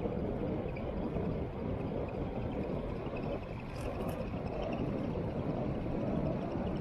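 Wind rushing over an action camera's microphone with tyre noise on asphalt as a bicycle descends at speed: a steady low rumble. Two faint short high ticks come a little under four seconds in.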